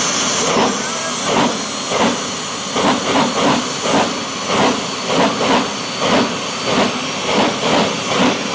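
Jet funny car's turbine engine running at the starting line: a steady rushing hiss with a rhythmic chuffing, roughly two pulses a second. A high whine fades away just after the start.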